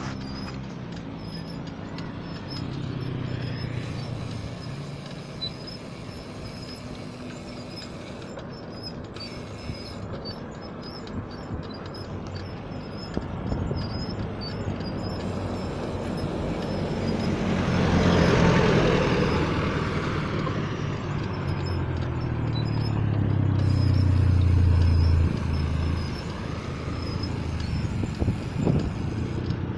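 Road traffic: a motor vehicle passes close by a little past halfway, its noise rising and falling. A few seconds later comes a deep, steady drone that stops suddenly.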